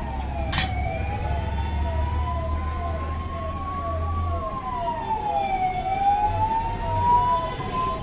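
Electronic siren sounding: a slow wail rising and falling over several seconds, with quick falling chirps repeating two or three times a second beneath it. A low hum underneath stops about four seconds in.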